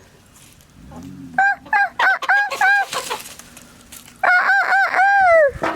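Roosters crowing twice: first a choppy crow broken into short notes, then a second crow about four seconds in that ends on a long falling note.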